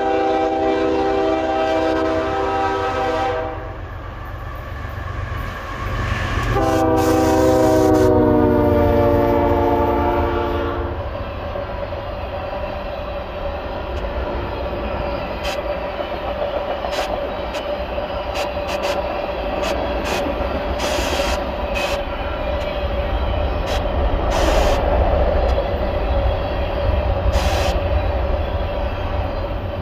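Canadian Pacific freight locomotive sounding two long blasts on its chord air horn, the second sliding slightly in pitch as it passes. The freight cars then roll by with a steady low rumble, wheel clicks over the rail joints and a steady ringing tone from the wheels.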